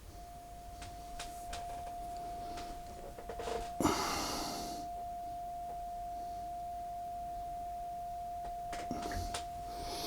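A steady, pure test tone of medium pitch starts just after the beginning and holds unchanged, the reference tone for setting the Akai GX-77 reel-to-reel deck's playback level. A short burst of rustling noise comes about four seconds in, and a few light clicks near the end.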